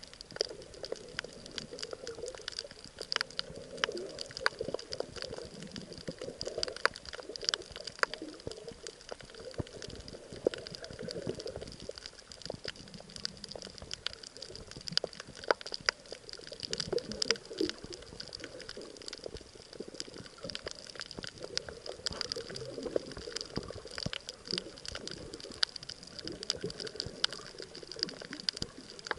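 Underwater reef crackle: a dense, irregular stream of sharp clicks from snapping shrimp, over a low uneven rushing of water.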